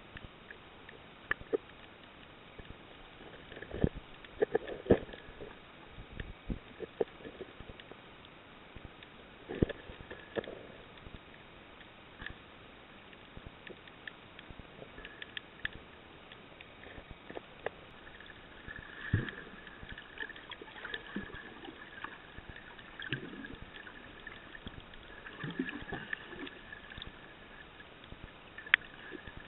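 Muffled underwater sound on a shallow coral reef: scattered clicks, knocks and gurgles at irregular intervals, with a faint high hum coming and going in the second half.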